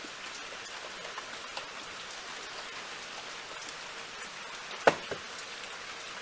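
Steady rain falling and pattering on surfaces, with scattered small drips. About five seconds in, a sharp, louder knock is followed closely by a second, fainter one, like heavy drops striking something hard.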